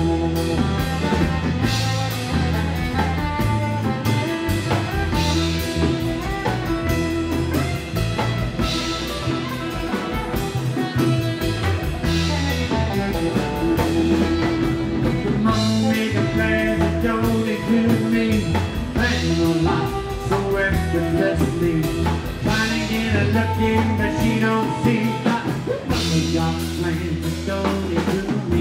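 Live rockabilly band playing: solid-body electric guitar, upright double bass and drum kit with a steady driving beat.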